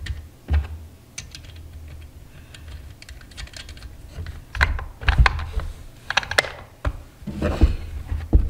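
Irregular clicks and knocks of metal parts as the chain tension on a Proyama 62cc chainsaw's bar is adjusted by hand, with a denser run of knocks and a short scrape in the second half.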